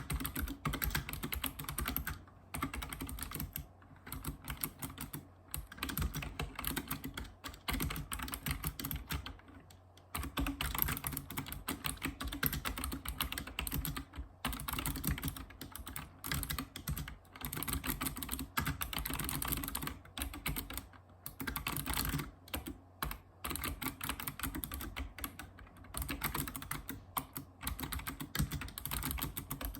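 Typing on a Razer Ornata Chroma mecha-membrane keyboard: fast runs of key clicks broken by short pauses every few seconds.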